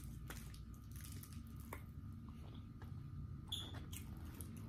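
A person chewing a battered fried onion ring, with scattered small mouth clicks and a short, sharper crackle about three and a half seconds in, over a steady low hum.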